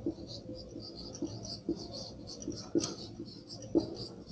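Marker pen writing on a whiteboard: a run of short scratching strokes with a few soft taps of the tip on the board, the loudest taps near the end.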